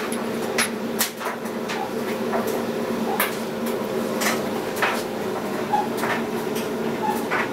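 A steady low hum with irregularly spaced light clicks and knocks, roughly one every half second to a second.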